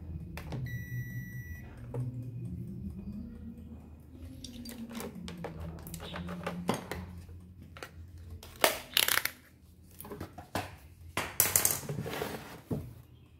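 A multimeter's continuity tester beeps once for about a second. Then come sharp clicks and clatters of plastic and metal parts and tools being handled, loudest in the last few seconds.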